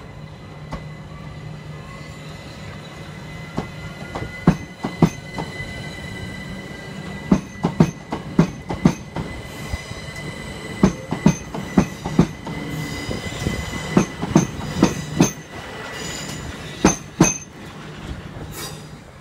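Southern Class 377 electric multiple unit running through the station: a steady low hum and a thin high steady tone, with a faint rising whine over the first few seconds. From about three seconds in until shortly before the end come many sharp clacks of the wheels over rail joints and points, in irregular groups.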